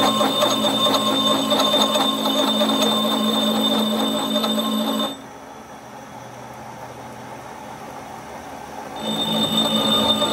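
A rotary gear cutter on a spinning arbor cuts teeth into a metal gear blank wetted with cutting fluid: a steady metallic whine with rapid fine chatter. The sound drops off suddenly about five seconds in and comes back about nine seconds in.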